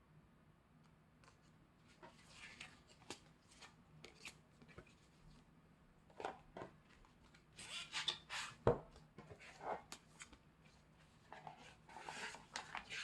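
Hands handling an album package: paper and card rubbing and rustling, with scattered light clicks and taps and one sharper knock about two-thirds of the way through.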